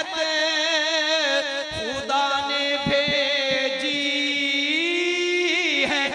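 Male naat reciter singing a naat in a long, wordless-sounding melisma: drawn-out held notes with a wavering, ornamented pitch that steps up near the end.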